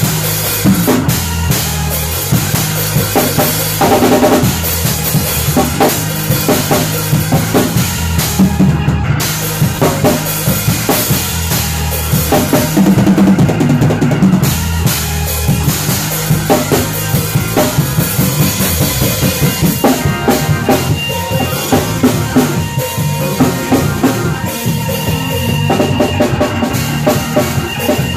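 Live church band jamming in a shed session: a drum kit playing busy, loud grooves with constant kick and snare hits, over sustained bass and organ notes.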